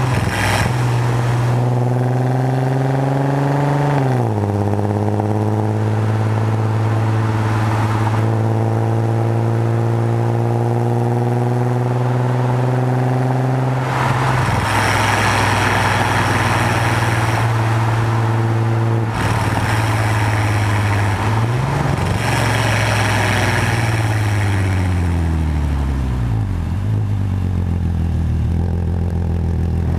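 Volkswagen Passat's 3.6 VR6 engine through a custom exhaust, driving: a steady drone that drops sharply in pitch at an upshift about four seconds in, holds steady while cruising, then falls away as the car slows and rises again near the end.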